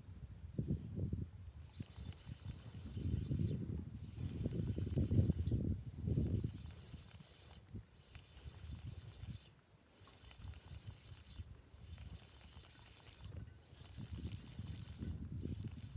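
Insects chirping in a steady pulsing trill, with bouts of low rumbling noise that are loudest in the first half and return near the end.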